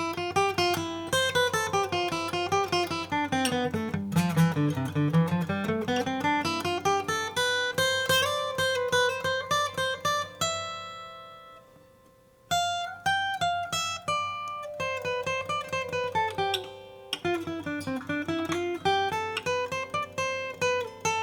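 All-flamed-mahogany Martin Style 18 acoustic guitar played in fast single-note runs that fall in pitch and climb back up. About halfway through, a chord is left ringing and fading for about two seconds before the runs start again.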